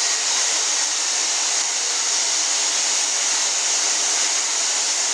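Steady, even rushing hiss with no pauses or changes, strongest in the upper range.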